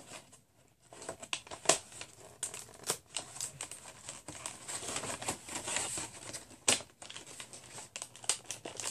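Paper and cardboard packaging rustling and crinkling as it is handled, with many small sharp crackles; quiet for about the first second.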